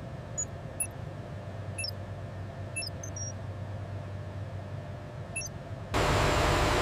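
Low steady machine hum with a few faint high ticks, then a loud steady rushing noise cuts in abruptly near the end.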